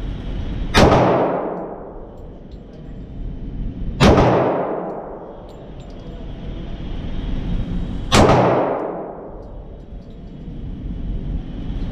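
Semi-automatic handgun fired three times, slowly and deliberately, about four seconds between shots. Each report echoes off the concrete walls of an indoor range.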